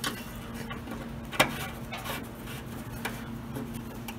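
Lawn tractor's metal oil dipstick being pushed back into its filler tube and handled, giving a few light clicks and taps, the sharpest about a second and a half in, over a steady faint hum.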